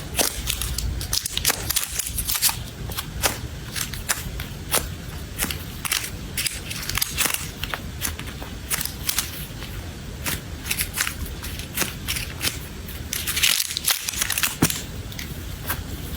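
Close-miked crafting handling noises: a dense, irregular run of sharp crackles and clicks, louder in a cluster near the end.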